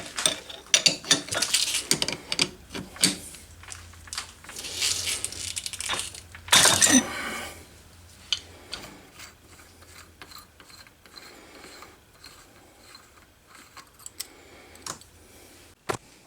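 Hand file scraping over the cut end of a small steel screw to clean it up and bevel it: irregular rasping strokes and clicks for about the first seven seconds, then quieter small clicks and handling noise.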